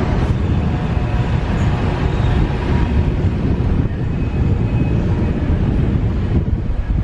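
Car driving along a street: road and traffic noise under a loud, uneven rumble of wind buffeting the microphone.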